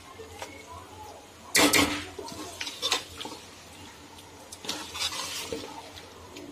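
Metal spoon scraping and knocking against a large metal cooking pot as chicken pieces and masala are stirred and fried (bhuna). The loudest scrape comes about one and a half seconds in, with softer ones near three and five seconds.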